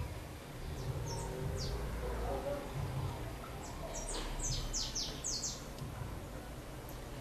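Small songbird chirping: a few short, high chirps, then a quick run of sharp descending chirps about four seconds in.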